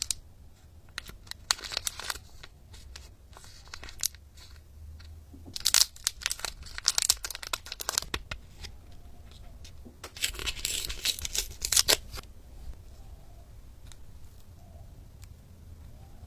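Toy packaging being torn open and crinkled by hand, in three spells of crackly tearing and rustling with quieter pauses between, the last few seconds quiet.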